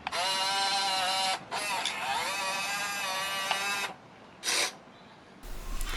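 Electric motors and metal gearing of a TR211M RC excavator whining as the arm moves, plausibly under a load of nearly 2 kg. There are two long runs, about a second and a half and then two and a half seconds, with the pitch dipping as each starts, and a short burst about four and a half seconds in.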